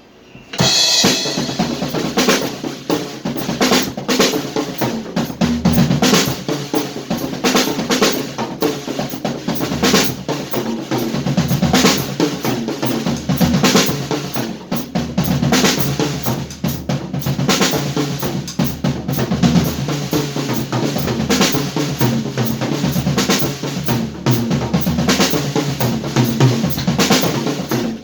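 Drum kit played in a steady groove, with bass drum, snare and cymbals, starting about half a second in.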